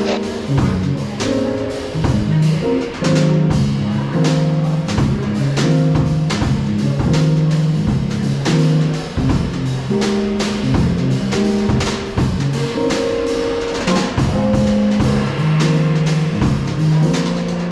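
Instrumental background music: keyboard over a drum kit keeping a steady beat.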